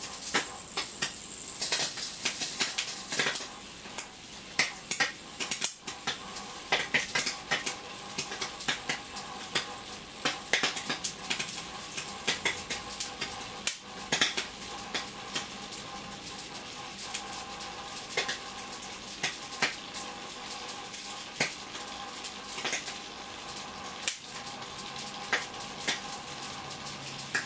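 High-voltage arcing from a microwave oven transformer driven at full power through an LG Philips 42-inch plasma panel: irregular sharp crackles and snaps over a steady electrical buzz.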